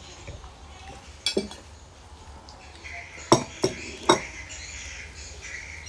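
Spoons and forks clinking against plates and bowls at a meal: one clink about a second in, then three sharper, louder clinks in quick succession a little past the middle.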